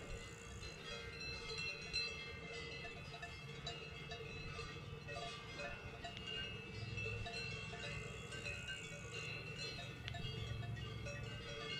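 Cowbells on grazing cattle ringing irregularly, several bells at different pitches clanking at once.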